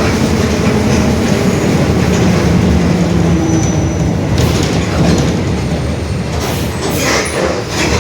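Mercedes-Benz OF-1721 Bluetec 5 city bus under way, heard on board: a steady diesel and drivetrain rumble with a faint whining tone, the differential growling. A few knocks and rattles come in the second half.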